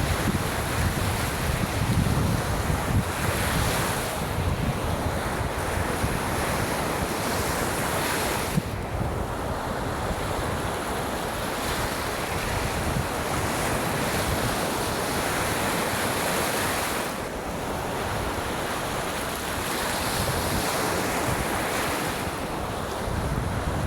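Waves breaking and washing up on a beach: a steady surf that swells and eases in long surges. Wind buffets the microphone, most in the first few seconds.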